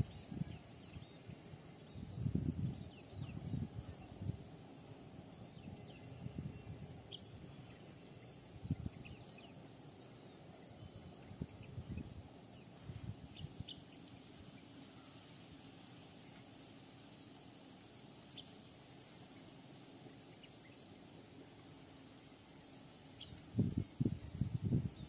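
Quiet trackside ambience: a steady high chirring of crickets or similar insects. Low rumbles come and go every few seconds and grow loudest near the end.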